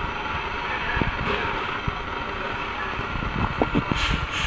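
Factory-floor background noise from an electronics assembly line: a steady, even rumble with scattered knocks, and a few short hissing sounds near the end.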